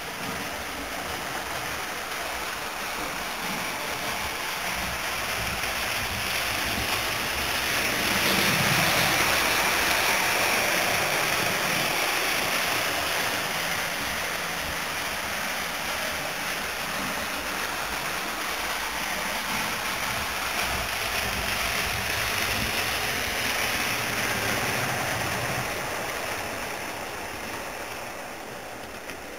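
HO-scale model train, a 2-8-0 Consolidation steam locomotive model hauling passenger cars, running along the track: a steady rushing rumble of motor and wheels on rail that swells about a third of the way in, again later on, and fades near the end.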